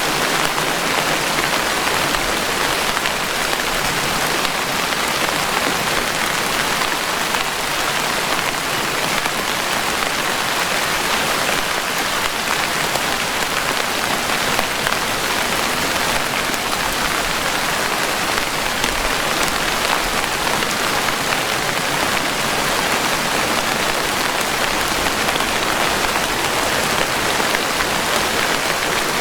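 Steady rainfall: an even hiss of many raindrops that keeps the same level throughout.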